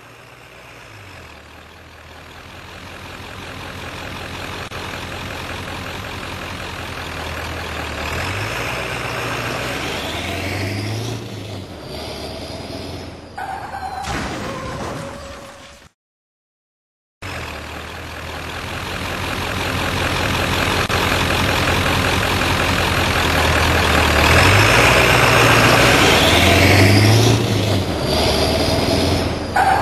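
A truck's engine getting steadily louder as it approaches, its note rising and falling as it accelerates. About halfway through there is a second of silence, then the same approach plays again, louder.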